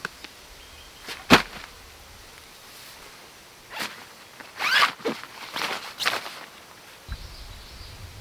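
Packaging of a new tent being opened by hand: one sharp snap just over a second in, then a quick run of ripping and rustling sounds about four to six seconds in.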